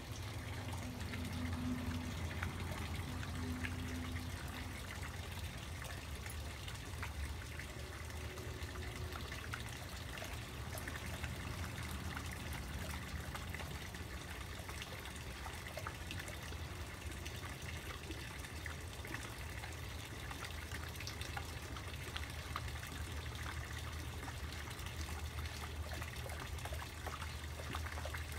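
Koi pond water trickling steadily, with a low steady hum underneath.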